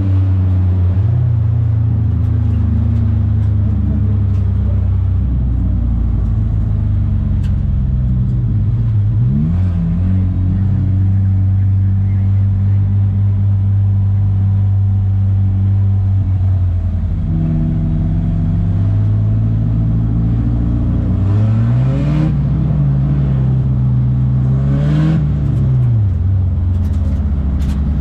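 Race car engine heard from inside the car while it laps a short oval, running hard at a mostly steady pitch. It dips and picks up briefly about ten seconds in, then climbs, holds for a few seconds and drops again near the end.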